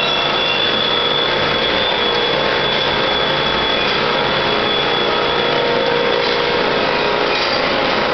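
Verduzco TVRM60 tortilla-chip machine running steadily, its electric motors and wire-mesh conveyor making a constant whir with a thin high whine that fades near the end.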